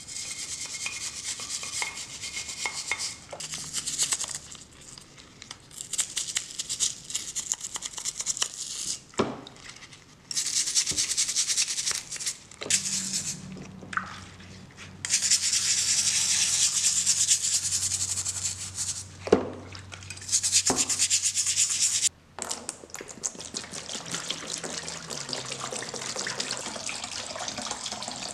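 A stiff brush scrubbing the cast-iron body of a Stanley block plane in a tub of soapy water, in quick back-and-forth strokes. The scrubbing comes in a series of stretches with short breaks between them.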